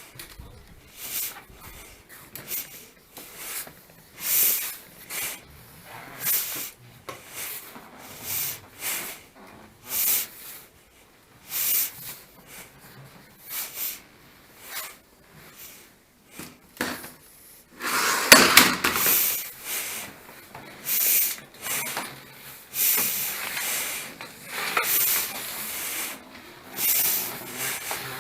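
Repeated hand scraping strokes on a hard surface, coming about once a second, with a longer, louder stretch of scraping about eighteen seconds in.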